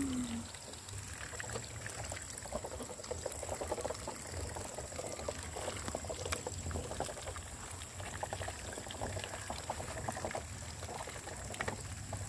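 A flock of Muscovy ducks dabbling with their bills in wet feed on trays: a steady, irregular run of small wet clicks and slurping splashes.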